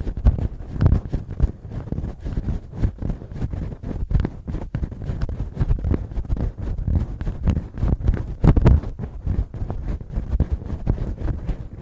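Fingertips and fingernails scratching and rubbing close against a binaural microphone, imitating ear cleaning: a fast, uneven run of scratchy strokes, heavy in the low end.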